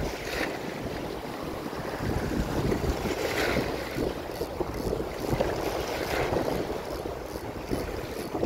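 Small sea waves washing and splashing over shoreline rocks, with wind on the microphone.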